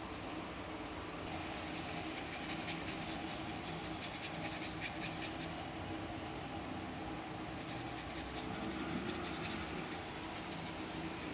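Paintbrush scratching across primed corrugated cardboard as blue paint is dabbed and brushed on: runs of quick, soft strokes with a pause in the middle, over a steady low background hum.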